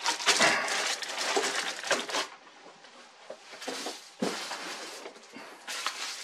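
Packing material and cardboard box rustling and crackling as a heavy vise is unpacked, loudest for the first two seconds, with a single knock about four seconds in.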